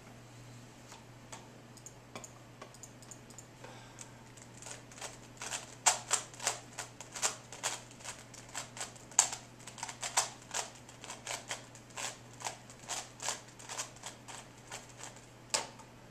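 Rubik's Cube turned rapidly in a speedsolve: quick plastic clicks of the layers snapping round, sparse at first, then a fast dense run from about six seconds in, with a last sharp click near the end. A steady low hum runs underneath.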